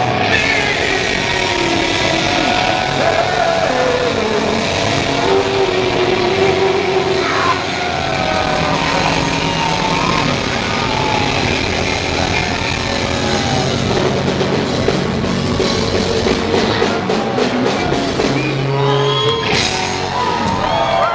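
Rock band playing live and loud: electric guitars, bass and drums.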